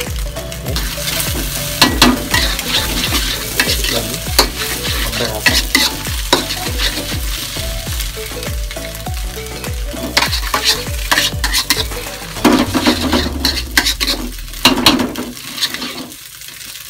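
Metal spatula scraping and clacking against a wok in quick repeated strokes, stirring scrambled duck egg that sizzles in hot oil.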